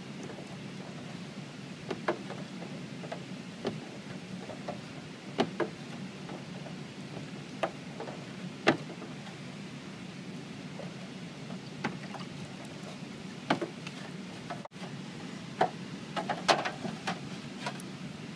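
Hypo fixer sloshing in a developing tray over a tintype plate, with scattered small splashes, drips and ticks over a steady low background noise; the liveliest cluster comes near the end.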